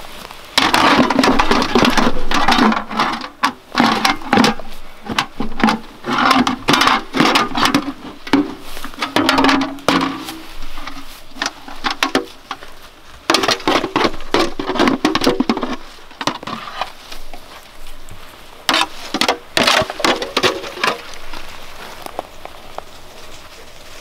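Hand digging in garden soil with a small spade while working a galvanized metal bucket of moose manure: quick scraping, clattering and patter in about four bursts of a few seconds each, with short pauses between and quieter near the end.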